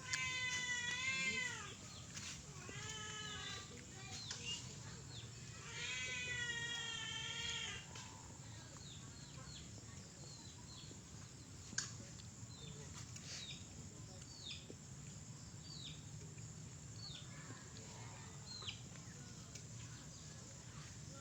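A cat meowing: three drawn-out, wavering calls in the first eight seconds. Many short, high chirps follow.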